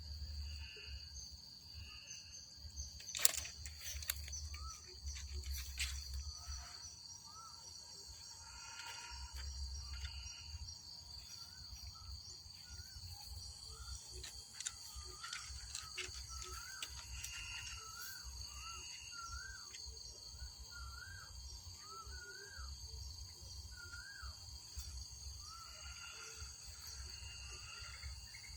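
Outdoor ambience of insects giving a steady high-pitched drone, over a low rumble. A sharp click comes about three seconds in, and short repeated chirps are heard through the middle of the stretch.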